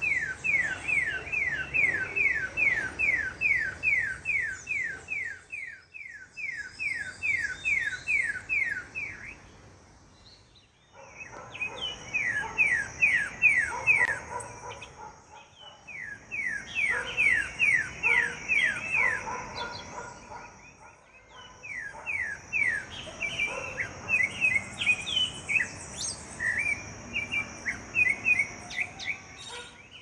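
A sabiá singing its siren-like song: long runs of quick falling whistles, about three a second, in bursts of several seconds with short pauses between, and more varied notes mixed in toward the end. A steady high-pitched whine runs underneath from about a third of the way in.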